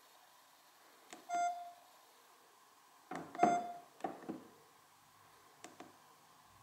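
Button clicks and key-press beeps from the keypads of two rugged feature phones, a Sonim XP3.20 Quest Pro and a Nomu T10, as their navigation keys are pressed. There are two short beeps about two seconds apart, each with a few clicks around it, then a couple of fainter clicks near the end.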